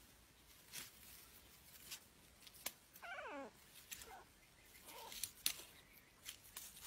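A cat gives a short cry that falls steeply in pitch, about three seconds in, then two fainter short calls follow, while a cat and a rat scuffle in grass with scattered rustles and clicks.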